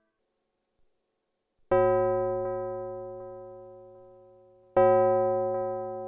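Arturia MicroFreak synthesizer playing an electric-piano-like keyboard tone through a Behringer DR600 digital reverb pedal. The tone is struck twice, about three seconds apart, after a short silence, and each strike starts sharply and fades away slowly.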